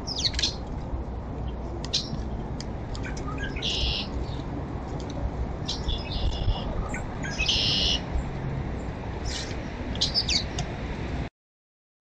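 Small backyard songbirds chirping and calling, with a couple of short buzzy calls among the chirps, over a steady low background rumble. The sound cuts out briefly near the end.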